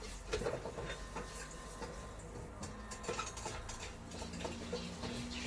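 A spatula stirring gram flour roasting in ghee in a pan, with irregular scraping and clicking against the pan, busiest about half a second in.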